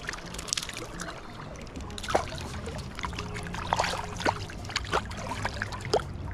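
Small splashes and drips of water as a small wild brown trout is handled in a stream, with a few sharp plinks scattered through. Steady river flow runs underneath.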